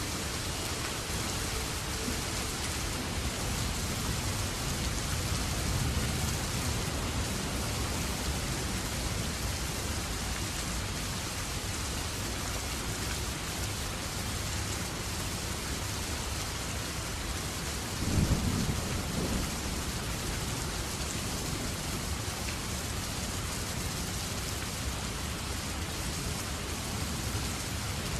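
Steady rain falling, an even hiss. About two-thirds of the way through, a brief low rumble stands out as the loudest moment.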